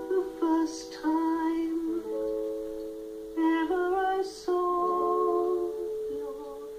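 A man singing a song with long held notes to his own strummed acoustic guitar.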